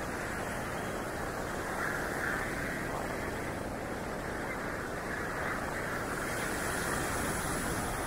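Ocean surf breaking and washing up the beach, a steady rushing noise that swells and eases every few seconds.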